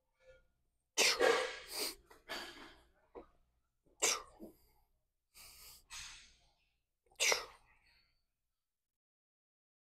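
A weightlifter's sharp, forceful breaths out through the mouth, one with each rep of a set of barbell preacher curls: about six short bursts, the loudest about a second in.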